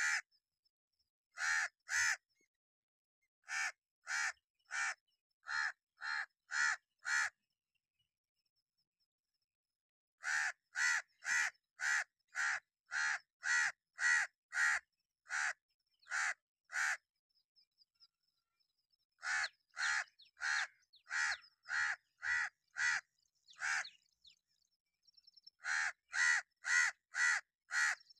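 House crow cawing: short harsh caws about two a second, in runs of several with pauses of a few seconds between runs, and a few faint softer notes in the pauses.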